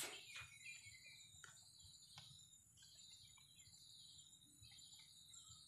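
Near silence, with faint insect chirping in the background and a few faint clicks.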